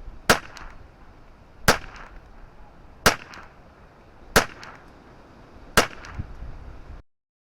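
Five shots from a semi-auto Ruger 10/22 .22 LR rifle firing Eley Contact subsonic rounds, evenly spaced about a second and a half apart, over steady wind noise on the microphone. The sound cuts off abruptly near the end.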